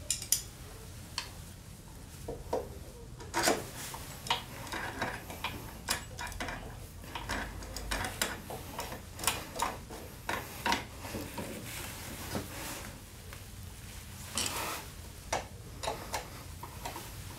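Ratchet socket wrench clicking in irregular bursts of sharp metallic ticks and clinks as it turns bolts on a scooter's engine.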